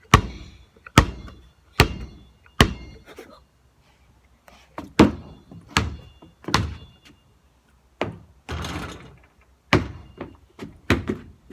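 Basketball being dribbled: sharp bounces on the ground about one every 0.8 seconds, four in a row, a pause of about two seconds, then a few more bounces. A short rushing, scraping noise sounds a little past the middle.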